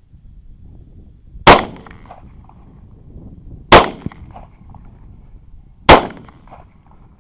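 Three rifle shots from a 6.8 SPC rifle, about two seconds apart, each ending in a short echo.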